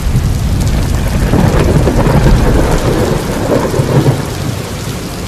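Thunderstorm: a heavy downpour of rain under a deep rumble of thunder, easing slightly near the end.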